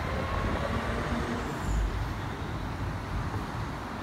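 Steady road traffic: cars and trucks passing on a busy highway, a continuous low rumble.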